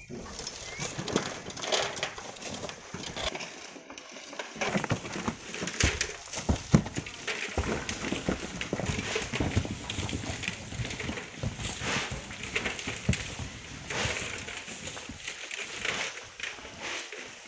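Footsteps crunching over loose volcanic gravel and stones, with many irregular knocks and scrapes.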